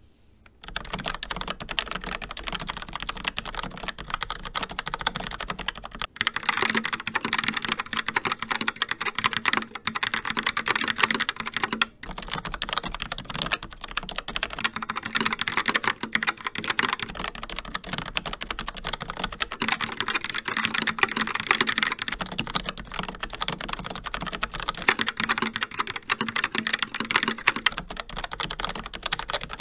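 Fast, continuous typing on two mechanical keyboards with tactile brown switches, alternating every few seconds: a Logitech MX Mechanical with Kailh Brown switches and a Logitech Pop Keys with Logitech TTC Brown switches. The clack changes character at each switch, about six and twelve seconds in and then every two to three seconds.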